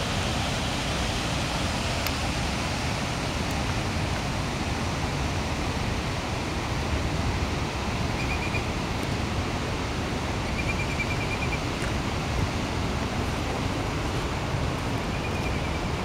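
Steady rushing of Goðafoss waterfall and its fast glacial river, mixed with wind buffeting the microphone.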